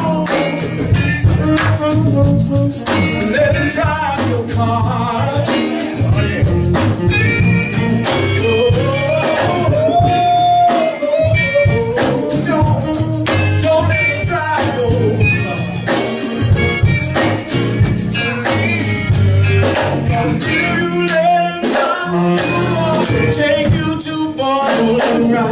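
Live gospel band playing, with singers at the microphones over keyboard and drums.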